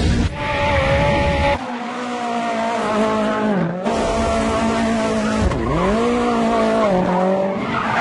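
Rally car engine held at high revs while drifting, over the hiss of spinning tyres. The revs drop and climb back three times in the second half.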